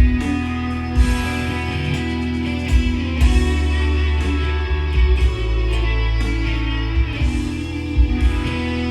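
Guitar-driven band music: strummed guitar chords over bass, with drum hits about once a second.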